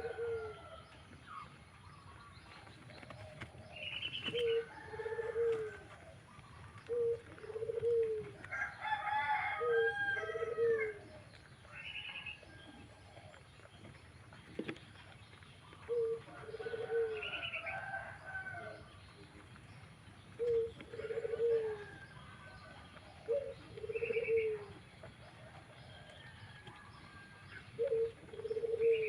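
Pigeon cooing over and over in short low calls every second or two, mixed with higher, shorter bird calls.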